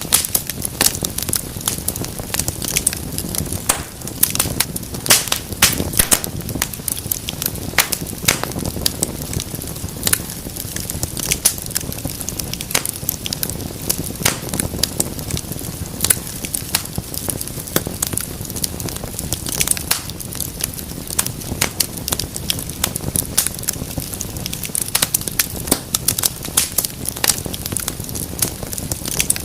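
Wood fire burning in a fireplace: frequent sharp, irregular crackles and pops over a steady low rush of the flames.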